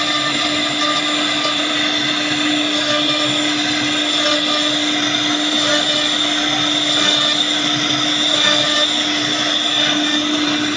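CNC wood router spindle running with a steady, unbroken whine over a constant hiss.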